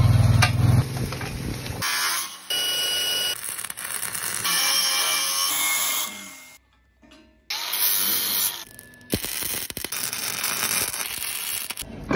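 Angle grinder cutting and grinding steel in short bursts of high-pitched hiss and whine, the sound changing abruptly every second or two. A loud low engine-like rumble runs for the first two seconds, and a brief near-silent gap falls about seven seconds in.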